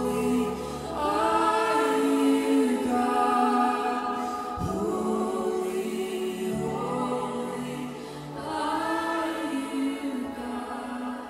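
Worship song sung live: voices sing slow, long-held phrases over sustained low chords that change every few seconds.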